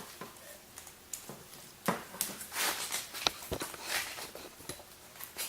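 A few scattered light knocks and clicks with brief rustling: someone handling and setting down objects.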